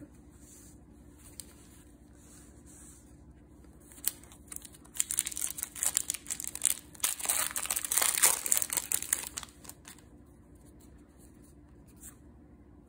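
A Magic: The Gathering booster pack's wrapper being torn open and crinkled by hand: a dense crackling rustle that starts about four seconds in and stops about six seconds later.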